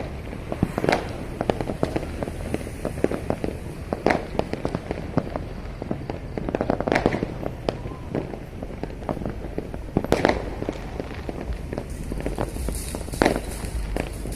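Many fireworks going off at once across a city: a constant run of pops and crackles over a low rumble, with louder bangs every few seconds.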